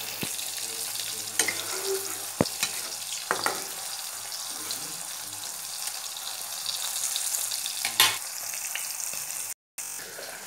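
Chinese mallow (lofa saak) curry simmering in a black iron kadai: a steady bubbling, sizzling hiss, with a few sharp clicks and knocks of utensils against the pan, the loudest about eight seconds in.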